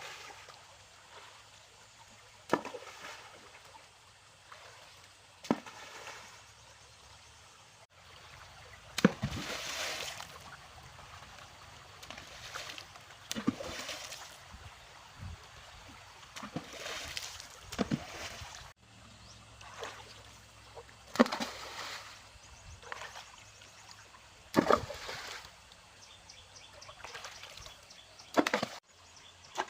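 Water sloshing and splashing in separate strokes a few seconds apart, over a low watery background.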